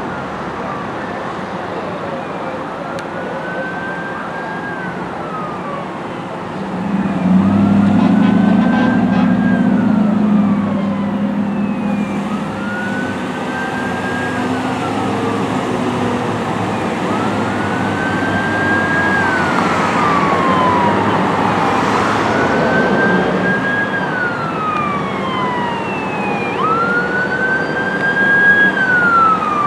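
Fire engine siren wailing in slow rise-and-fall cycles about every four and a half seconds, growing louder as the truck approaches. Traffic noise runs underneath, with a louder low rumble from about seven to eleven seconds in.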